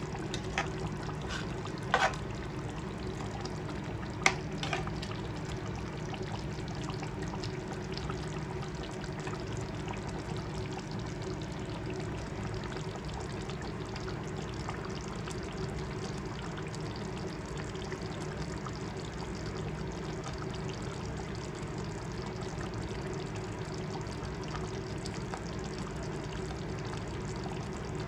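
Pot of chicken curry simmering steadily on the stove, a continuous bubbling hiss, with a few sharp utensil clicks in the first few seconds.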